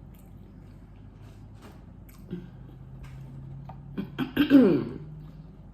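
A woman clearing her throat with a short cough about four to five seconds in, the sound dropping in pitch, as she recovers from choking on a bite of corn. Faint small clicks come before it.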